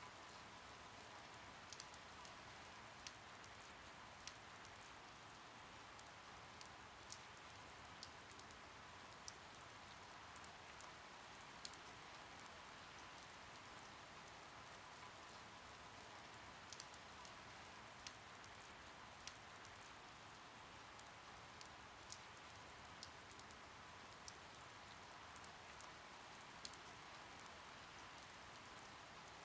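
Faint steady rain, with scattered single drops ticking at irregular moments.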